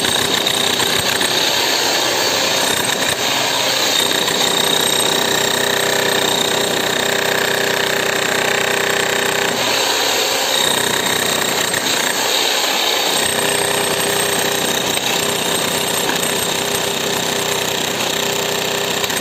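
DCK 11 kg electric demolition hammer chiselling concrete, hammering steadily without a pause.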